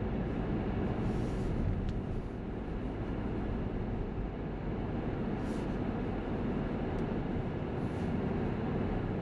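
Car driving along at steady speed: a constant low rumble of tyres and engine heard from inside the cabin, with a few faint short hisses.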